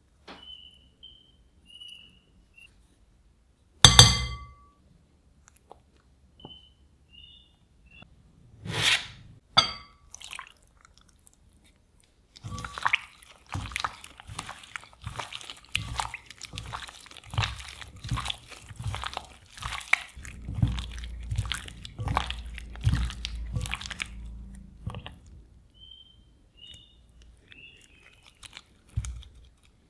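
Kitchen preparation sounds: a bowl or utensil clinks once and rings about four seconds in, a few sharp knocks follow, then about twelve seconds of rapid tapping and knocking of food being worked with a utensil.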